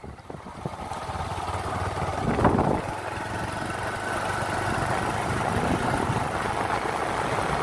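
Motorcycle engine running as the bike moves off and rides along, with wind rush on the microphone; it grows louder over the first two seconds, with a brief louder burst about two and a half seconds in, then runs steadily.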